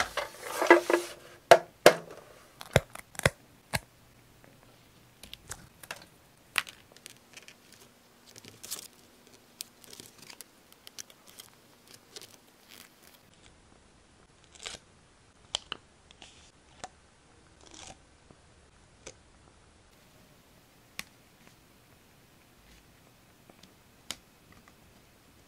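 Paper and small craft tools handled on a desk: a dense burst of paper rustling in the first two seconds, then scattered light taps and clicks with a few short soft rustles.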